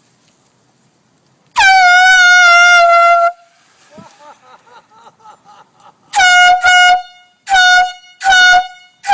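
Air horn blasted once long, for nearly two seconds, then after a pause in four short blasts, the last two a little over half a second apart, with another starting at the very end; a loud, steady, piercing single tone.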